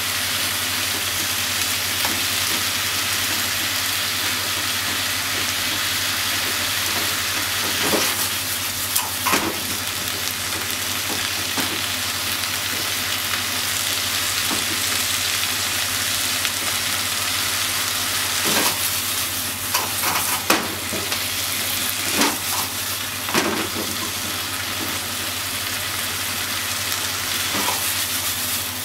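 Stir-fry of vegetables and pork sizzling in a hot frying pan, a steady hiss, while wooden chopsticks toss it. Brief knocks and scrapes of the chopsticks against the pan come now and then, more often in the second half.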